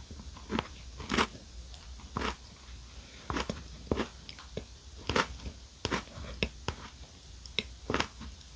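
Close-miked chewing of a mouthful of chocolate-coated mini chocolate cupcake, with sharp crunches and mouth clicks at irregular intervals.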